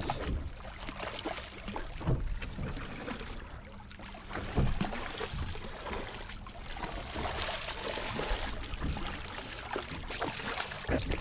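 Water splashing and sloshing beside a small boat as a hooked conger eel thrashes at the surface, with wind on the microphone and a few dull knocks.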